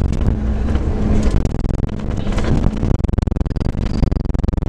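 Steady low drone of the Scania K410 bus's engine and road noise while it is under way, with light rattles.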